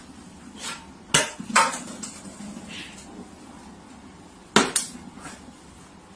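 A few scattered sharp knocks or taps over a quiet background: two about a second in, two more about four and a half seconds in, and a fainter one in between.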